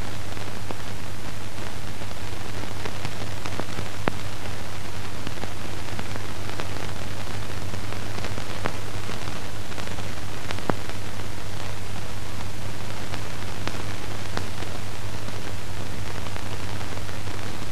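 Steady hiss with a constant low hum and a few faint clicks: the surface noise of an old film soundtrack, with no other sound on it.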